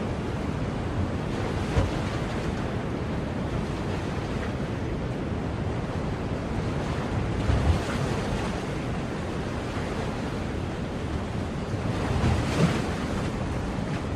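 Ocean surf washing steadily on the shore, a continuous rushing hiss, with a few brief low thumps about 2 seconds, 8 seconds and 12 seconds in.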